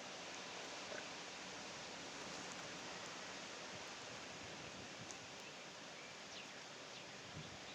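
Faint, steady background hiss with a few soft ticks scattered through it.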